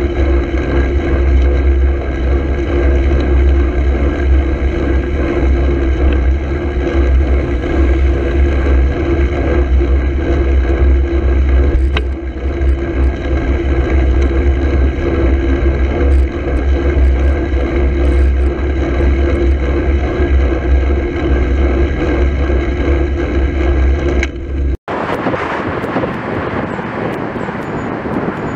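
Steady wind rumble on a cycle-mounted camera's microphone while riding, mixed with road and traffic noise from cars on the road. About 25 s in it cuts abruptly to another recording with a brighter, hissier wind and road noise.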